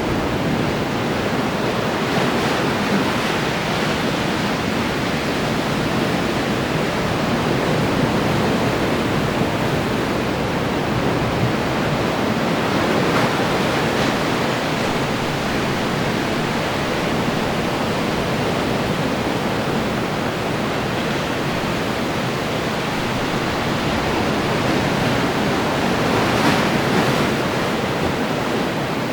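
Ocean waves breaking and washing onto the shore, a steady rushing surf with gentle swells in loudness as sets come in.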